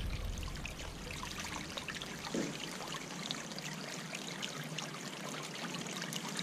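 Water spilling over the rim of an urn fountain and trickling down its sides into the pond: a steady, light splashing trickle.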